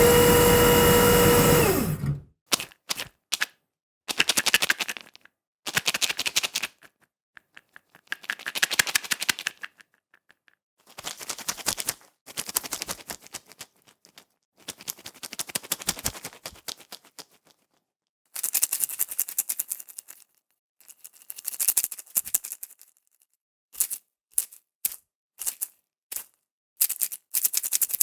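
A string of separate sound effects: first a sustained tone with overtones that dips and cuts off about two seconds in, then a series of short bursts of rapid mechanical clicking, like typing or a typewriter, each a second or so long with silent gaps between them.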